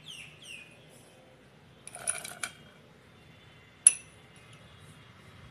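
Raisins tipped from a small glass bowl into an aluminium saucepan: a short rattle about two seconds in, then one sharp metallic clink with a brief ring near four seconds.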